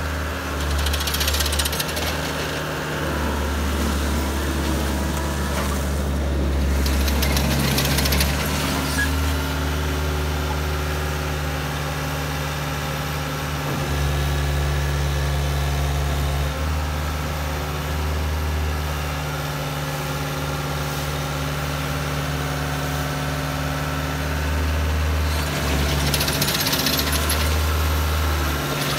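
Caterpillar 277B compact track loader's diesel engine running steadily under load as the machine drives and works its lift arms and bucket. A brighter rushing, gritty noise rises over the engine about a second in and again near the end.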